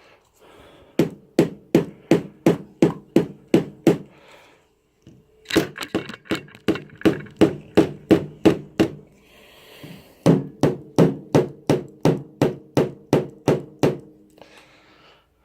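Rubber mallet tapping a block of wood held against the tab of a motorcycle clutch cover, in three quick runs of even taps, about three to four a second. The cover is stuck on its gasket seal and is being knocked free.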